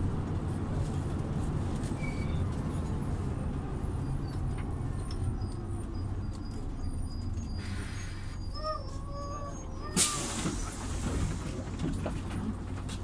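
City bus engine running with a steady low hum, heard from on board. About ten seconds in comes a short, sharp hiss of compressed air from the bus's air system, the loudest sound here, with a fainter hiss a couple of seconds before it.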